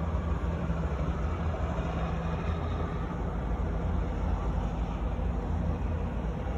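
A steady low rumble and hum with no separate bangs.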